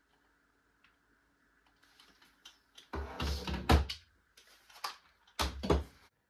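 Faint steady hum, then handling noise: rubbing and knocks as a gaming headset is pulled off the head, about halfway through, and a clunk as something is set down on the desk near the end.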